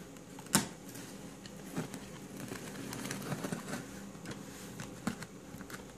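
Handling of a boxed figure's packaging: one sharp click about half a second in, then scattered light taps and rustles.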